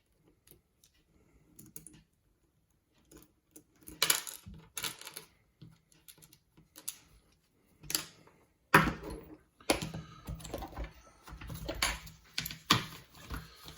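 Small metal lock parts and tools clicking and rattling against each other and a hard surface while a challenge lock is taken apart. A few faint clicks at first, then louder, busier clicking and clattering from about four seconds in, densest over the last five seconds.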